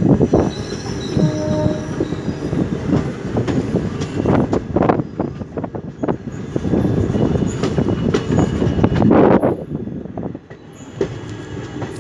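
Passenger train wheels rolling over rail joints and points, a dense rumble with frequent sharp clicks and clatters. There are brief thin wheel squeals about a second in, and the noise dips for a moment near the end.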